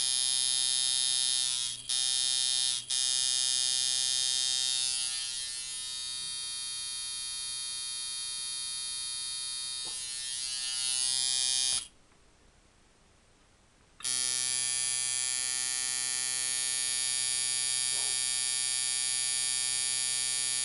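Schroder coil tattoo machine set up as a liner, running at 6 volts with a steady buzz. It cuts out twice briefly near the start, runs softer for a stretch in the middle, and stops for about two seconds before running again.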